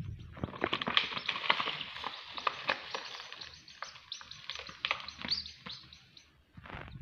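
Baby chicks peeping, many short high calls in quick succession over a rustling hiss, dying away about six seconds in.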